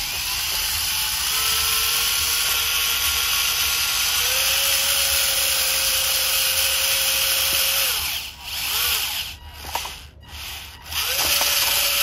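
Homemade RC New Holland toy tractor's electric drive motor and gearing whining under load as it drags a weighted pulling sled. Around two-thirds of the way through the whine cuts out and restarts several times in short spurts, then runs steadily again near the end as the tractor strains with its front wheels lifting.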